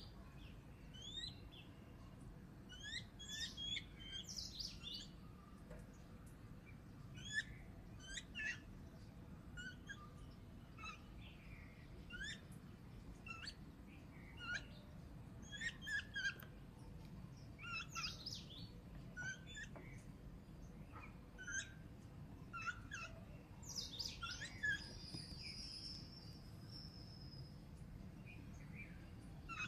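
Birds chirping: many short, high chirps and squeaks at irregular intervals, with one longer held high note a little after the middle, over a faint low background hum.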